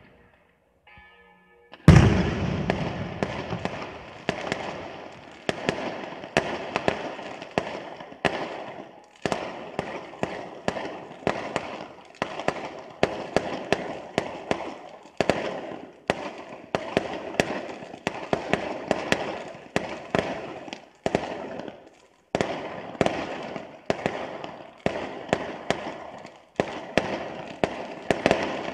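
Fireworks display: a loud first bang about two seconds in, then a rapid, near-continuous series of bangs, several a second, each echoing, with a few brief lulls.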